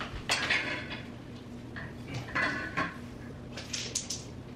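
Metal parts of a basketball hoop kit clinking and clattering as they are handled during assembly: a scatter of short clanks, with a few sharper, higher clinks about three and a half to four seconds in.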